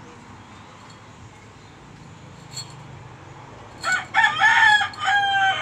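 A rooster crowing once near the end, a loud cock-a-doodle-doo in a few short segments ending in a long held note, over a quiet steady background.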